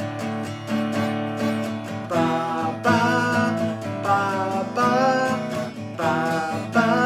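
Instrumental music intro led by a strummed acoustic guitar with a steady beat; about two seconds in, a higher, wavering melody line joins.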